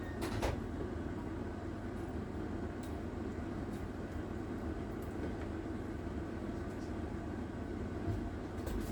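A steady low rumble, with a couple of sharp clicks about half a second in and a few faint taps later, as a basting brush works spice paste onto a tilapia.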